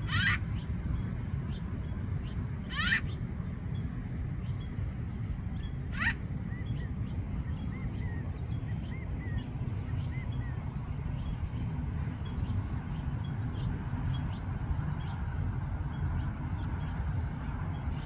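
Acorn woodpecker calling: three loud, harsh, rising calls about three seconds apart, then a few soft short notes, over a steady low rumble.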